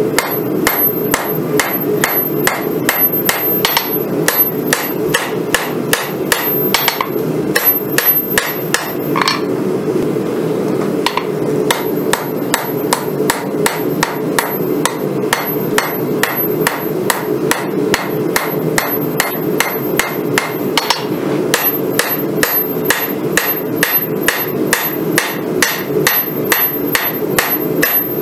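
Hand hammer forging a red-hot San Mai Damascus bowie blank on a steel anvil: steady blows of about three a second, with a pause of about two seconds near the middle. A steady low drone runs underneath.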